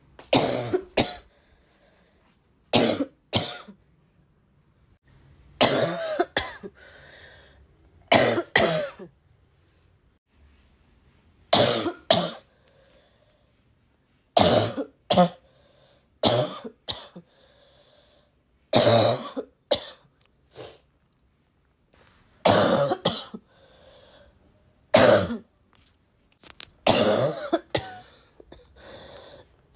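A person coughing repeatedly: short fits of mostly two sharp coughs every two to three seconds, with a longer run of coughs near the end.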